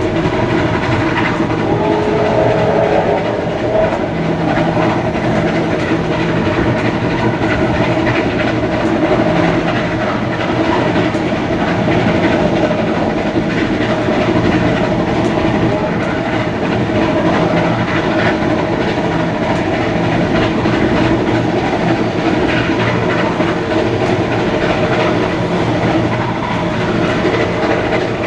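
Heritage steam-hauled passenger train running along the line, its wheels giving a steady clickety-clack over the rail joints. A brief wavering tone sounds about two seconds in.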